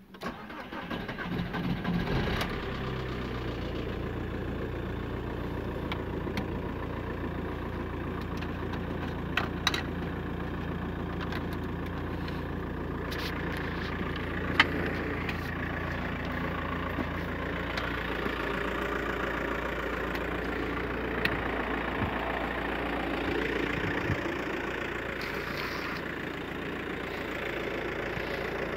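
Volkswagen Passat B5.5's 1.9 TDI four-cylinder turbodiesel being started: the starter cranks for about two seconds until the engine catches, and it then settles into a steady idle. A few short clicks sound over the idle.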